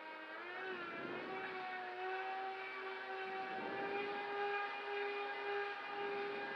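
Radio-controlled model airboat's propeller motor running, a steady whirring tone. Its pitch wavers briefly about half a second in, then settles, rises a little near two seconds and holds steady.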